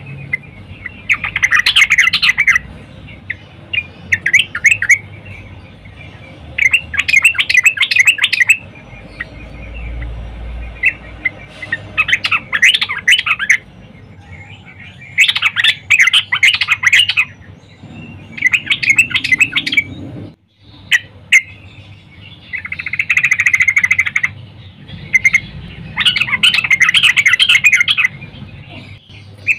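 Yellow-vented bulbul (trucukan) singing: bubbly chirping phrases of one to two seconds, repeated every few seconds.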